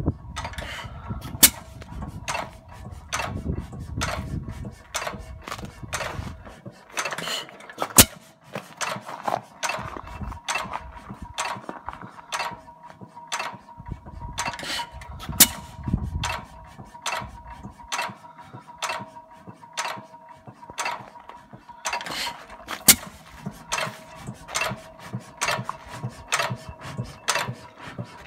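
A 7 hp Monitor upright hit-and-miss engine running, its valve gear and governor clicking about twice a second as it coasts. A sharper bang comes about every seven seconds as it fires.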